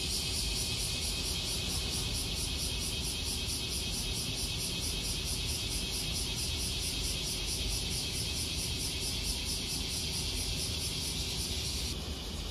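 Summer outdoor ambience: insects buzzing steadily in a high, evenly pulsing chorus, over a low steady rumble. The high part drops away just before the end.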